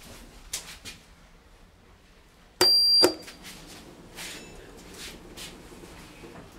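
A short electronic beep from the lift's controls, one high steady tone of about half a second with a sharp start and stop, among soft clicks and knocks of the car and its doors.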